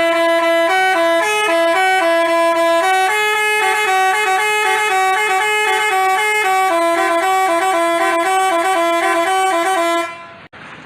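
Telolet basuri bus horn playing a quick, repeating melody of stepped notes, which stops near the end.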